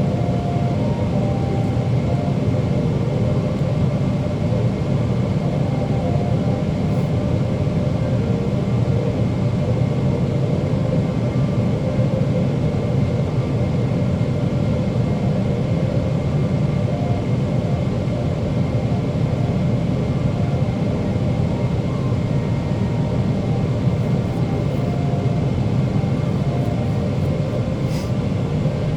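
Steady cabin noise inside a Boeing 777-300ER airliner: the low rumble of its GE90 engines and the airflow over the fuselage, with a thin steady whine over it. A brief click sounds about a second before the end.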